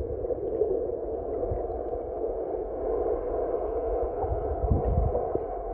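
Muffled underwater ambience picked up by a submerged camera: a steady, dull rush of water with scattered low thumps.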